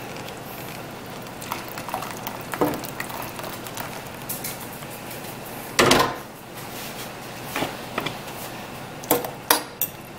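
A metal spoon clinking and scraping on cookware as thick gravy is poured over chicken and spread in a ceramic casserole dish. There are scattered light clinks, one louder clank about six seconds in, and several quick taps near the end.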